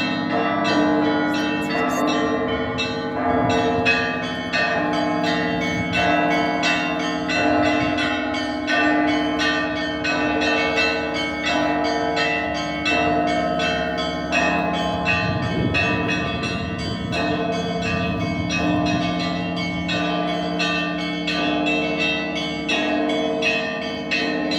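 Russian Orthodox monastery bells being rung: a quick, rhythmic pattern of small bells struck a few times a second over the sustained ringing of larger, deeper bells.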